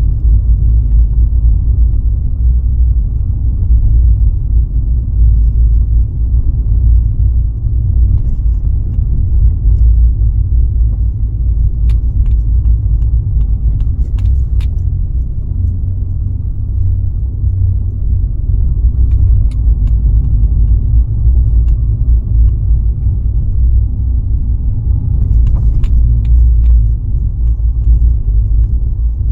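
Steady low road rumble of a car driving along, with a few faint clicks or rattles about halfway through and again near the end.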